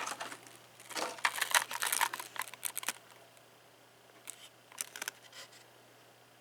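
A socket set and its packaging being handled: a quick run of clicks and crinkly rustles for about two seconds, then a few separate clicks.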